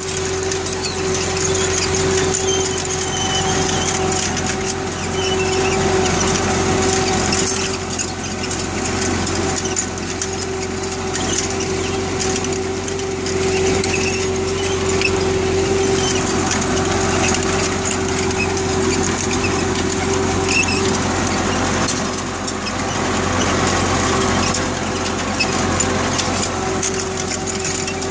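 UTB 650 tractor's four-cylinder diesel engine running steadily under load, pulling a six-row fertiliser applicator.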